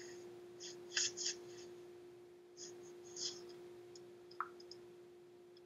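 Faint scattered clicks and rustles, a handful of short sharp ones in the first few seconds, over a steady hum.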